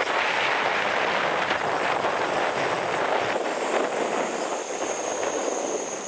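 Jet engines of an Aircalin Airbus A330neo taxiing past: a steady rush of engine noise with a faint high whine above it.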